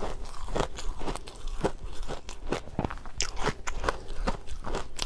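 Close-up crunching of a mouthful of powdery shaved ice dusted with matcha powder being chewed, in quick irregular crunches about two a second.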